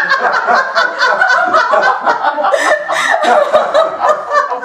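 A woman laughing, a long run of quick laughs.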